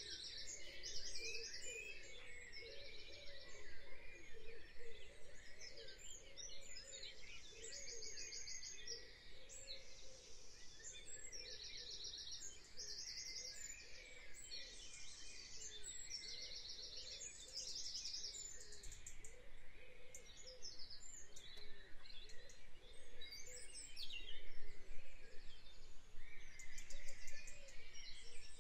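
Birdsong ambience: several birds giving short, rapid chirping trills again and again over a steady background hiss.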